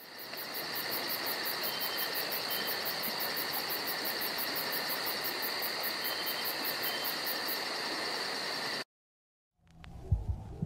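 Forest ambience of insects chirping: a steady high hiss with a rapid pulsing trill, about five pulses a second, that cuts off suddenly about nine seconds in. After a brief silence, low rumbling and a few knocks follow near the end.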